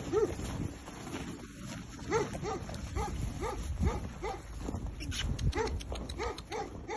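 Puppies whimpering in short, high rising-and-falling yelps, a few a second at the start and then scattered. Brief crackling clicks come about five seconds in.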